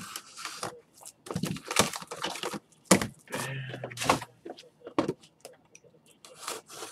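Trading-card pack wrappers being torn open and cards handled: irregular crinkly tearing, scraping and sharp clicks, loudest about two and three seconds in.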